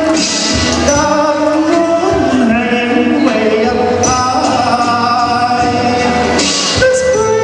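Loud background music with a singing voice and sustained melodic tones, with a brief burst of hiss, like a cymbal, near the start and again near the end.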